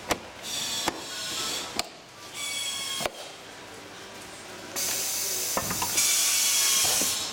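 An upholstered office chair seat and its plastic base being handled and turned over on a workbench: several sharp plastic knocks, and four stretches of hissing scrape as the seat slides against the bench. The scraping is loudest in the last couple of seconds.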